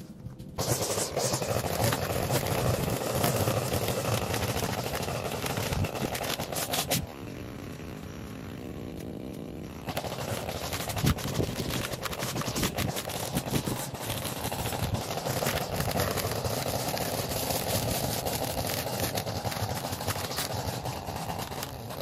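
Small gas engine of lawn equipment running steadily. It drops lower for a few seconds about seven seconds in, then picks up again.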